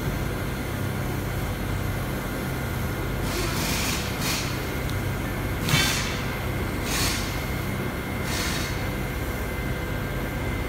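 A steady low mechanical hum, with a handful of short hissing noises between about three and nine seconds in, the loudest near six seconds.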